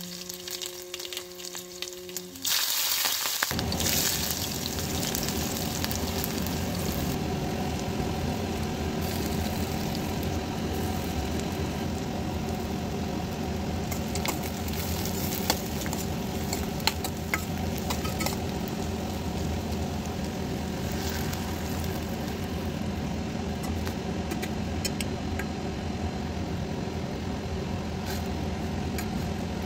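Oil sizzling in a steel pan as chopped small onions fry, then mashed boiled potato being stirred in with a spoon, with a few sharp clicks of the spoon against the pan. A steady low hum runs underneath. The sizzle starts loud about two and a half seconds in.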